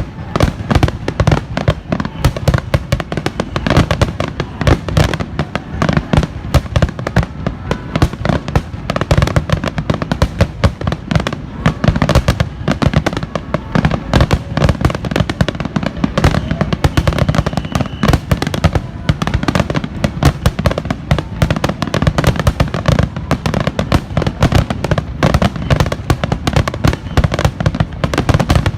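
Fireworks finale barrage: shells bursting in dense, overlapping booms and crackles several times a second without letup.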